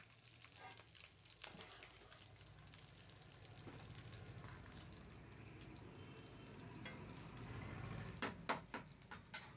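Battered potato fritters deep-frying in hot oil in a kadai, a faint steady sizzle. Near the end come a few sharp clinks.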